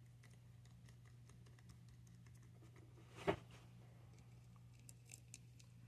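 Faint ticking and clicking of small screws and a hand driver as a hub is screwed onto a plastic RC beadlock wheel, with one louder clack about three seconds in, over a steady low hum.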